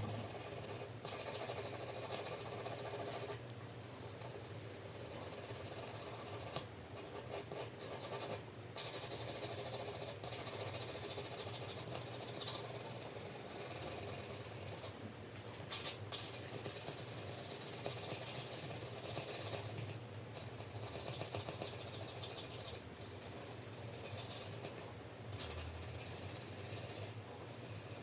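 4B graphite pencil shading on paper: a continuous scratchy rasp of strokes, broken by several brief pauses where the pencil lifts.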